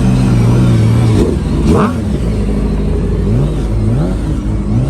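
Car engines revving: a steady held note for about the first second, a sharp rev climbing high just before two seconds in, then a string of short rev blips rising and falling.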